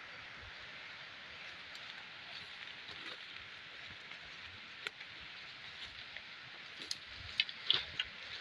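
Footsteps pushing through forest undergrowth and leaf litter, with a few sharp snaps and crunches about five seconds in and a cluster near the end, over a steady hiss of forest ambience.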